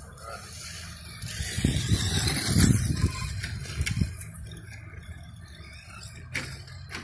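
Radio-controlled off-road truck running on a dirt track, its tyres scrabbling and chassis rattling, with a louder rush of noise from about one and a half to four seconds in.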